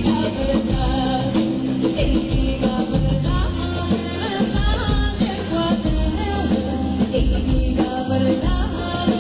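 Background music: a song with singing over bass and a steady drum beat.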